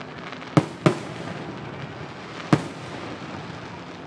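Aerial fireworks bursting: three sharp bangs, two in quick succession about half a second in and a third about two and a half seconds in, each with a trailing echo.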